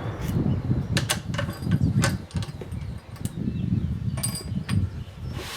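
Metallic clicks and knocks of a bolt-action rifle being handled and its bolt worked after a shot, about a dozen sharp clicks spread irregularly, a couple ringing briefly, over a low rumble of wind or handling on the microphone.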